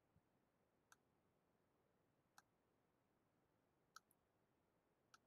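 Four faint computer mouse clicks, spaced about one to one and a half seconds apart, in near silence.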